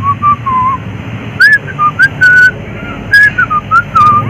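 A person whistling a short tune of clear single notes, some held and some sliding up or down in pitch.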